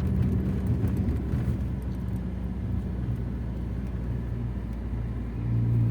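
Car engine and road noise heard from inside the cabin: a steady low drone that eases off in the middle and swells again near the end.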